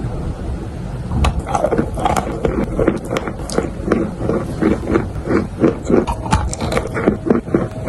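Chalk being bitten and chewed close to the microphone, a quick regular series of crunches starting about a second in, about three a second.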